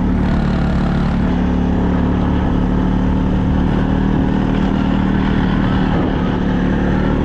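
Off-road vehicle engine running steadily at an even pitch, with a rushing noise underneath.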